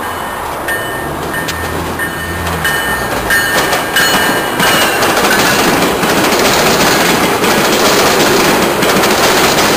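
GO Transit bilevel commuter train rolling past on the tracks below, its wheels rumbling on the rails. It grows louder over the first few seconds and holds loud and steady from about four seconds in.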